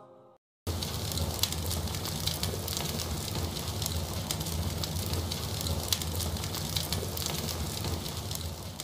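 The last of a sung nasheed fades out, and after a brief silence a fire crackling sound effect begins: a steady low rumble under a dense spatter of small crackles.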